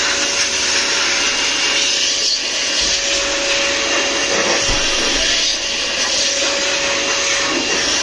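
Air blower running steadily, blowing dust off sound-system amplifiers and speakers: a dense rushing hiss with a thin steady whine from its fan motor.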